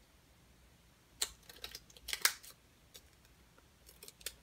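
Faint, scattered light clicks and crinkles from a small sheet of heat-transfer vinyl polka-dot decals being handled and peeled, the sharpest about a second in and a couple of seconds in.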